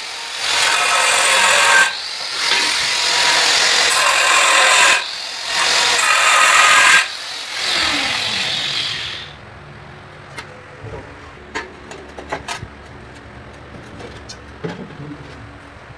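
Angle grinder cutting a ceramic tile, the loud scream of the disc in the tile coming in three long passes with short dips between them. About seven seconds in the cutting stops and the grinder winds down with a falling tone, followed by a few light clicks and knocks.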